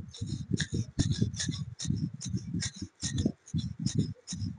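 Steel blade rubbed back and forth by hand on a perforated diamond sharpening plate, a quick, even scraping at about four to five strokes a second, each stroke with a small metallic tick.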